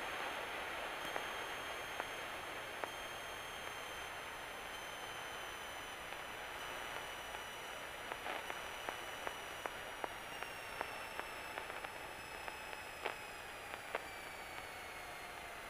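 Cessna 172 cockpit on final approach: a steady hiss with a faint engine whine that falls slowly in pitch as power is brought back for landing. Light clicks come scattered through the second half.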